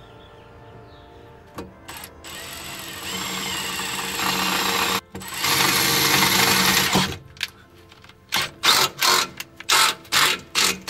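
Power drill boring the large holes in the car's underbody: it runs steadily from about two seconds in, stops for an instant near the middle, then runs again and is worked in short bursts, about two a second, toward the end.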